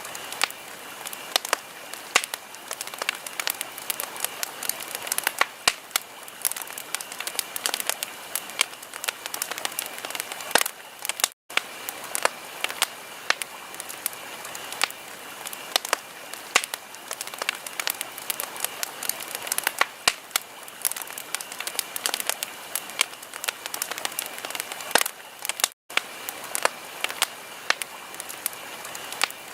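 Wood fire in a fireplace crackling steadily, with dense, irregular snaps and pops over a soft hiss. The sound cuts out for an instant twice.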